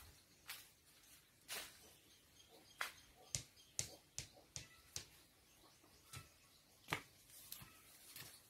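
A quiet series of short, sharp clicks and snaps, about a dozen at irregular intervals, like small objects being handled.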